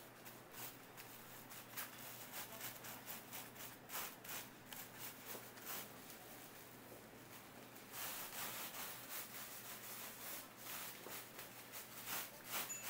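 Irregular, faint scraping and rubbing strokes from hands and tools working a batch of oranda gangjeong, the syrup-bound puffed snack, growing busier and louder about two-thirds of the way through.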